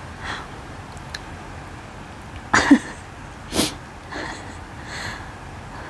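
A person sniffing and taking short, sharp breaths through a runny nose and a burning mouth from very spicy ghost pepper noodles. There are several quick breaths, the loudest two about two and a half and three and a half seconds in.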